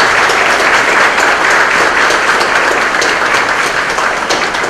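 Audience applauding: a dense, steady patter of many hands clapping, the claps thinning slightly near the end.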